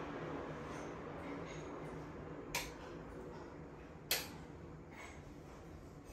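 Two sharp clicks about a second and a half apart, over a steady low room hum.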